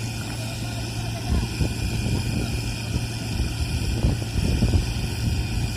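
Excavator's diesel engine running with a steady low hum, joined about a second in by irregular low rumbling that comes and goes.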